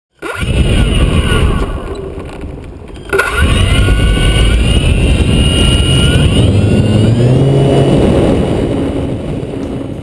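Parkzone T-28 Trojan RC airplane's electric motor and propeller whining, throttled up sharply about three seconds in, over a loud rumble from the takeoff roll on asphalt. The whine climbs in pitch, then eases, and the rumble fades as the plane lifts off.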